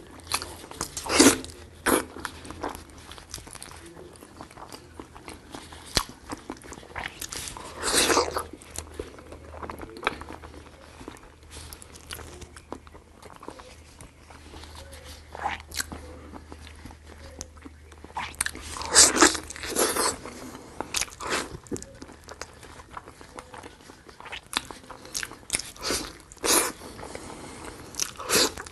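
Close-miked eating of braised pig's trotters: wet, sticky biting and chewing of the skin and fat, a steady run of small mouth clicks with a few louder bites about a second in, near the middle and near the end.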